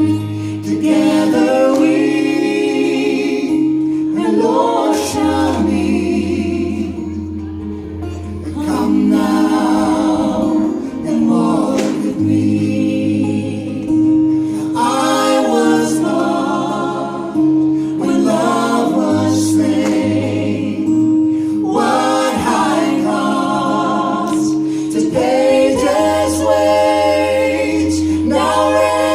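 Three voices singing together in harmony with guitar accompaniment, in phrases of a few seconds each over held low notes and chords.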